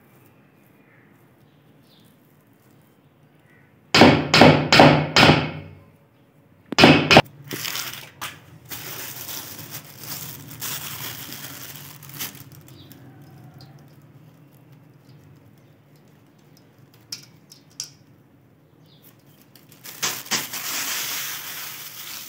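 A steel spoon knocks sharply against a steel bowl, about four times in quick succession and then twice more. Later comes a stretch of rustling and a second one near the end, as grated coconut and sliced almonds are sprinkled over suji halwa.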